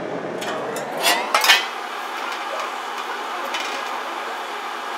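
Sheet-steel repair panels clinking and scraping against a steel workbench as they are handled, with several sharp metallic clinks in the first second and a half, then only a steady hiss.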